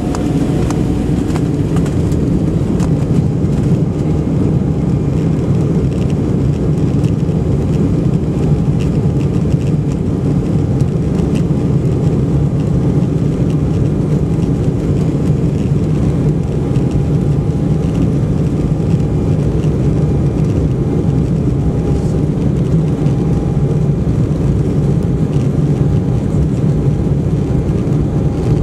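Steady engine hum and rumble inside the cabin of an Embraer 190 jet airliner as it rolls on the ground, its two GE CF34 turbofan engines running at an even setting.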